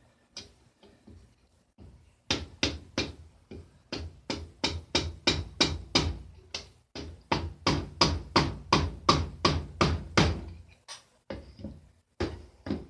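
Rapid sharp knocks, about three a second, as a hammer strikes the motorcycle engine during clutch work. They start about two seconds in, run for some eight seconds, stop briefly, then resume near the end.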